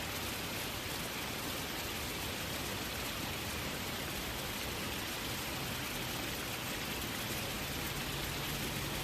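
Gentle waterfall: a steady rush of falling water, with a low steady hum coming in near the end.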